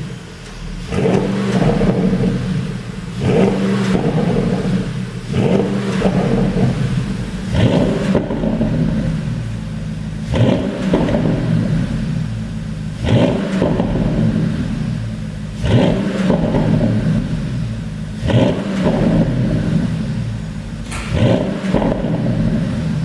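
Porsche Panamera GTS V8 revved again and again in blips every two to three seconds, with sharp pops and crackles from the exhaust as the revs fall: a pop-and-bang tune.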